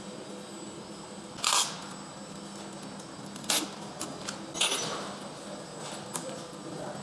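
Four short rasping noises over a steady workshop hum: gloved hands working a rubber sealant strip and tape onto the steel rim of a battery case.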